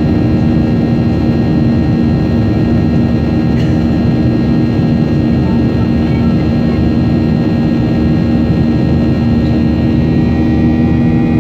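Jet airliner cabin noise at a window seat in flight: a loud, steady drone of engines and rushing air with a steady low hum running through it.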